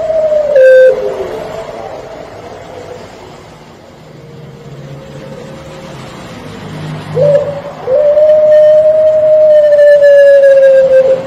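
Puter pelung dove, a Barbary dove breed, cooing. A drawn-out coo ends with a falling tail about a second in. After a quieter gap, a short note is followed by one long, steady, held coo of about four seconds near the end.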